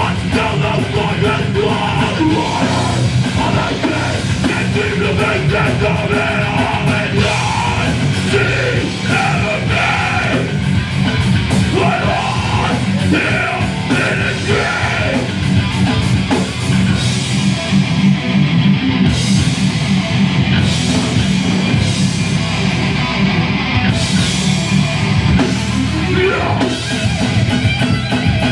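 Live heavy metal band playing loud, with electric guitar and a vocalist singing and yelling into a microphone.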